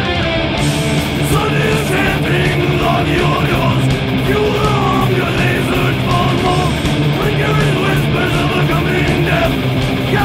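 Heavy-metal/punk rock band playing, with distorted electric guitars, bass and drums, in a rough demo mix. A lead vocal comes in about a second in and carries on over the band.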